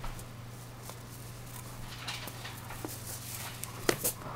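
Faint handling noises from a reborn doll's filling being pulled out: soft rustles and small clicks, with two sharp clicks close together near the end, over a steady low hum.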